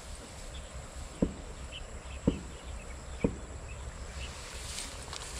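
Faint insects chirping over a low rumble, with three short, dull thumps about a second apart near the middle.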